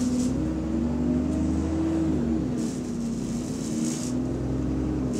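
Double-decker bus running, heard from inside the cabin: a steady drone from the engine and cooling fan that wavers slightly and rises then falls in pitch about two seconds in, over a low rumble. The bus is running in limp mode with its cooling fan working hard.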